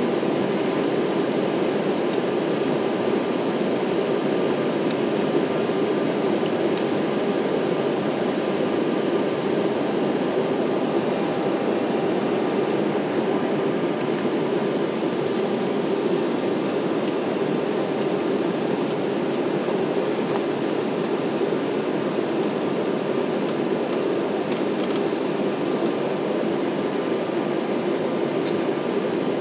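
Steady noise of a jet airliner's engines and rushing air heard inside the passenger cabin while climbing after takeoff, with a faint steady whine over it.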